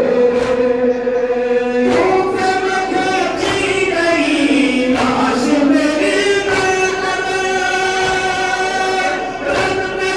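Several men singing a Shia noha (mourning lament) together through microphones, in long held notes that step up and down in pitch, with a sharp beat of chest-beating (matam) about every second and a half.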